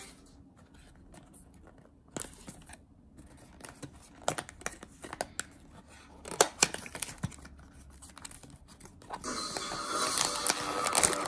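Cardboard blind box opened by hand: scattered taps, rustles and tearing of card and paper. From about nine seconds in, steady crinkling of the foil bag inside the box.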